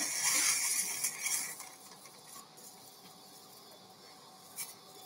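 Electrocautery pencil sizzling as it cuts through the dog's nasal tissue for about the first second and a half. After that a faint steady background, with one brief crackle near the end.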